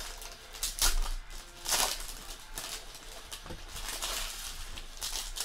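Foil trading-card pack wrappers being torn open and crinkled by hand, with two louder rips about one and two seconds in.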